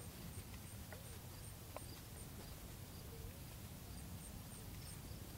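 Faint outdoor lakeside ambience: a low wind rumble on the microphone, with a thin high chirp repeating about three times a second, likely an insect or bird, and a few faint clicks.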